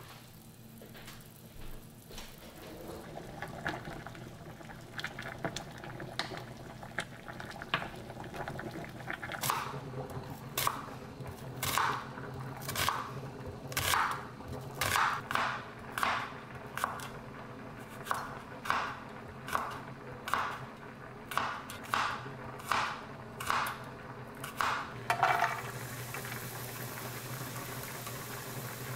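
A knife chopping an onion on a wooden cutting board, a steady run of sharp strokes a little faster than one a second. Near the end, sliced garlic starts sizzling in oil in a frying pan.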